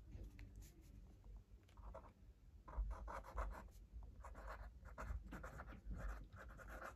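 A pen writing on notebook paper: faint, short scratchy strokes of the tip across the page, picking up about two seconds in and continuing in quick strokes.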